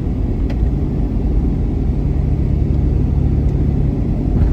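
A vehicle's engine running with a steady low rumble; a steady engine tone comes in about a second and a half in.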